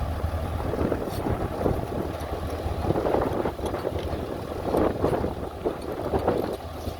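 Low, steady engine rumble of heavy machinery, with wind buffeting the microphone in irregular gusts.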